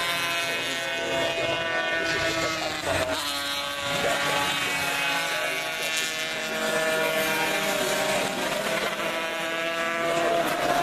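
Several classic Grand Prix racing motorcycles passing through a corner one after another, their engines overlapping, each pitch rising and falling as the bikes go by and accelerate out.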